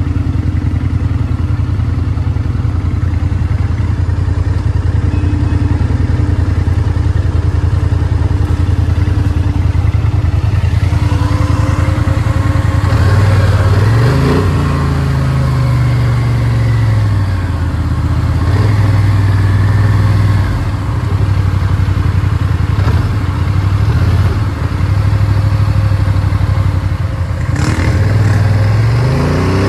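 ATV engine running at a steady idle, then revving up and falling back again and again as the quad is ridden, its pitch rising and dropping with each throttle change from about a third of the way in.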